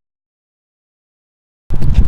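Complete silence with the audio cut out entirely. About a second and a half in, outdoor noise snaps back abruptly: wind buffeting the microphone, with a low rumble and a few sharp clicks.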